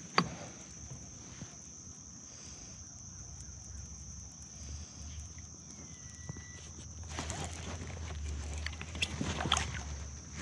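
Water sloshing and splashing around a fishing kayak, starting about seven seconds in, over a steady high-pitched drone; a single sharp click just after the start.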